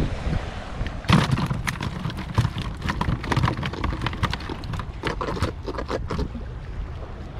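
Freshly caught fish flapping in a plastic basket, making a rapid, irregular run of slaps and taps that starts about a second in and stops shortly before the end. Wind and sea rumble run underneath.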